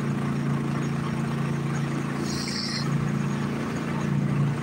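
An engine on the bowfishing boat running steadily with a low hum. A brief hiss comes about halfway through.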